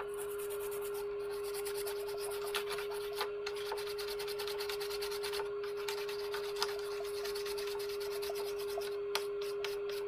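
Rapid back-and-forth scrubbing strokes on a circuit board with acetone, cleaning off solder flux after an IC has been reflowed, over a steady background hum.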